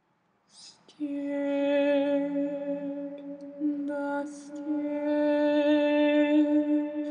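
A woman's voice singing a slow, unaccompanied melody in long held notes, with a quick breath before each of two phrases, the second taken about four seconds in.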